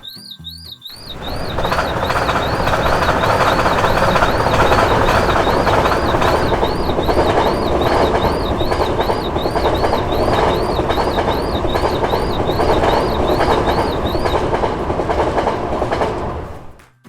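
Railroad crossing warning signal warbling up and down about twice a second while a train passes over the crossing. The train noise comes in about a second in and runs loud and steady. The warbling stops a few seconds before the end, and the train noise then cuts off abruptly.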